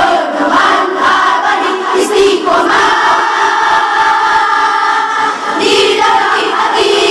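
A choir of young female students singing together, loud, with many voices on one line. Partway through they hold one long note for about three seconds before moving on.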